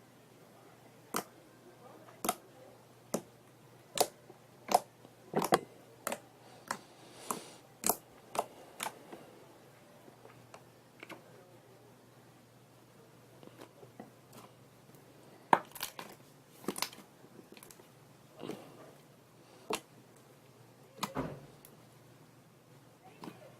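Slime being squished and pressed by hand, giving irregular sharp pops and clicks, with a quieter stretch in the middle.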